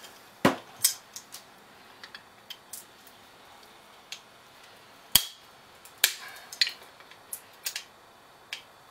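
Sharp metallic clicks and clinks at irregular intervals as locking pliers grip and work at the Woodruff key in an alternator shaft to prise it out; the loudest click comes about five seconds in.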